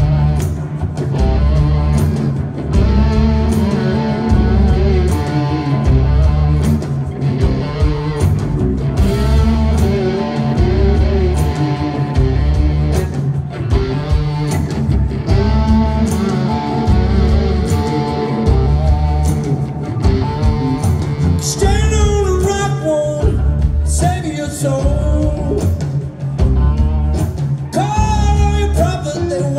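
Live blues-rock band playing: electric guitar over bass and a steady drum beat. A voice comes in singing about two-thirds of the way through and carries on over the band.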